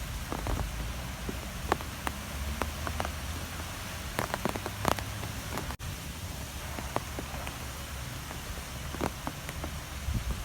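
Strong wind blowing steadily with a low rumble, and scattered sharp ticks of rain striking a surface.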